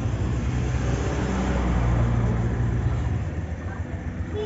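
A motor vehicle's engine running close by amid street noise. The low hum swells in the middle and fades after about three seconds.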